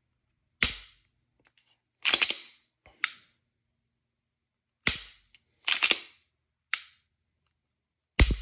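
An unloaded striker-fired pistol being dry-fired to feel the trigger: three sharp snaps as the trigger breaks and the striker falls. Between them come quick clusters of metallic clicks as the slide is worked to reset the striker.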